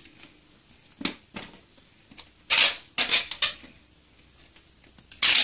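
Duct tape being pulled off the roll in several short rips, the loudest near the end.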